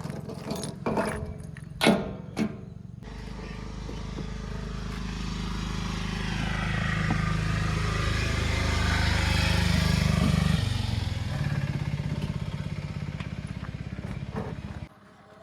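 A few sharp clicks and knocks, then a vehicle engine starts up about three seconds in. It runs steadily and grows louder, drops in pitch around ten seconds in, and cuts off suddenly near the end.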